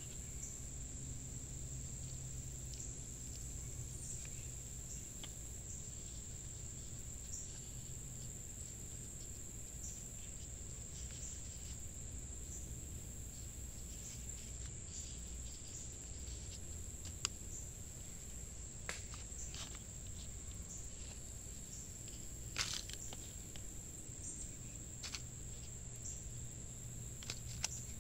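Steady high-pitched drone of an insect chorus, with a few light clicks and scrapes from a metal spoon scooping potting soil into plastic nursery pots.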